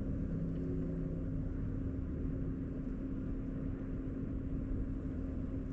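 Steady drone of a distant engine: a low hum over a rumble, slowly fading.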